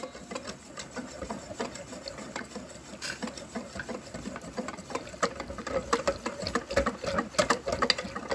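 Kutsinta batter being stirred fast in a mixing bowl, the utensil making a quick, steady run of clicks against the bowl.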